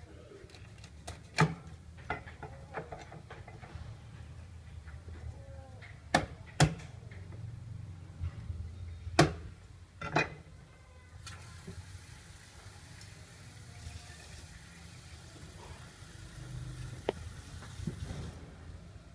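Meat cleaver chopping through goose leg on a thick wooden chopping block: several sharp, separate chops over the first ten seconds. Then a steady hiss for about seven seconds.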